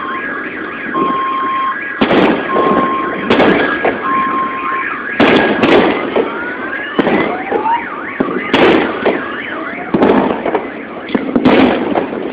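A ragged series of loud bangs, about eight over ten seconds starting about two seconds in, from the Chelyabinsk meteor's airburst shock wave. Behind them a car alarm beeps in two alternating tones, then wails in rising sweeps.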